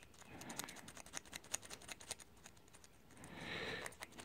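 Faint small ticks and scrapes of a blade scraping glued paper insulation off the nickel connector plate on a lithium-ion cell, with one longer, louder scrape about three seconds in.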